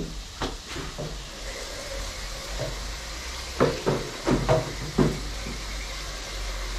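Pot of curry crayfish sizzling and steaming on the stove: a steady hiss, with a few brief louder sounds a little past halfway.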